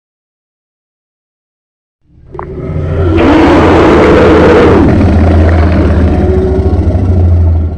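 Designed dragon roar sound effect: after about two seconds of silence it swells in, a deep steady rumble under a wavering cry that rises and falls in pitch, with a harsh hiss over the loudest middle stretch, easing off near the end.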